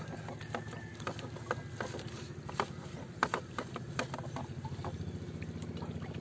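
A small engine runs steadily in the background with a fast, even pulse. Over it come scattered sharp clicks and knocks from fishing line and net being handled in a small wooden outrigger canoe, the loudest about three seconds in.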